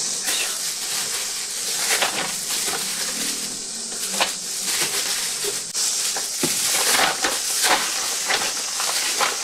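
Plastic zip-top bag crinkling and rustling as salted ume plums are dropped into it, into the plum vinegar and red shiso it holds, with many small crackles.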